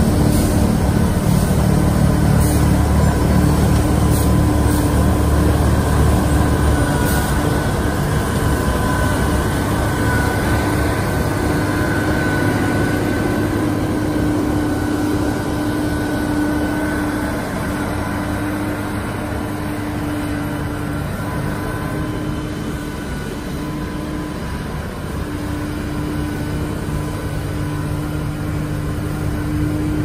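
Wheel loader with a Larue snowblower attachment running steadily, its diesel engine and blower throwing snow into a dump truck. The low end is heavier for the first several seconds, then eases slightly.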